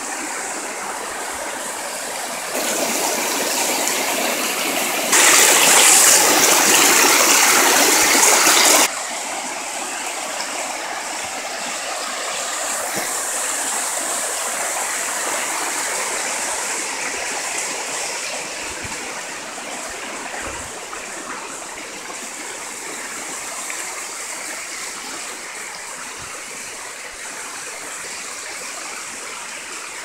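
Water rushing over the rock slabs and cascades of a rain-swollen waterfall, a steady rush of white water. It grows louder about two and a half seconds in, louder still from about five seconds, and drops back to a steadier, softer rush about nine seconds in.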